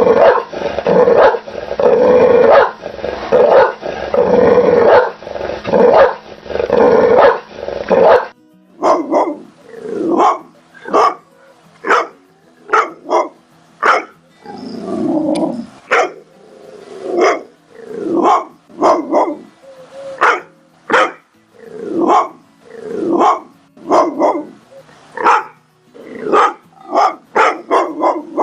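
Pit bull barking over and over. For the first eight seconds the barks come fast and almost run together; then the recording changes to separate, deeper barks about one or two a second, some drawn out into a growl.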